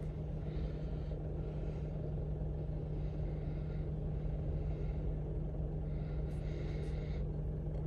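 Mitsubishi Triton diesel engine idling with a steady low rumble and hum.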